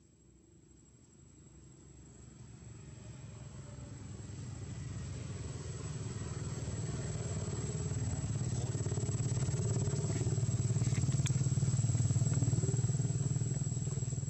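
A motor vehicle's engine hum that swells steadily louder over about twelve seconds as it approaches, easing off slightly near the end.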